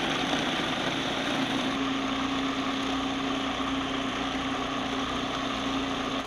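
Food processor motor and blade running steadily, chopping fresh pineapple chunks into a puree, with a steady hum that becomes more even about two seconds in. It cuts off abruptly at the end.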